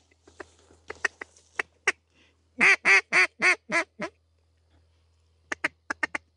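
A hand-blown duck call working circling ducks: scattered quick clucks, then a run of six loud quacks about two and a half seconds in, growing weaker toward the last, then rapid short clucks again near the end.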